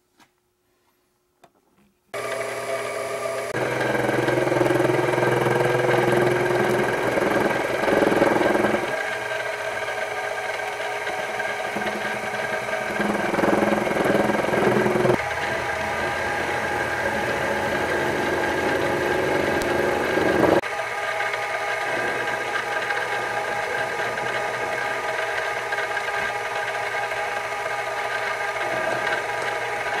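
After about two seconds of near silence, a King Canada mini-lathe runs with a steady motor and gear whine as its tool turns a part in the chuck. The level and tone shift a few times.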